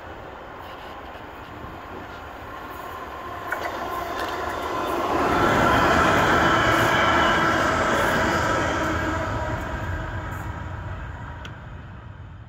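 An electric multiple-unit train passing on the adjacent track, its rush building about four seconds in, loudest in the middle, then fading away. Heard from the open window of a moving train, over that train's own steady running noise.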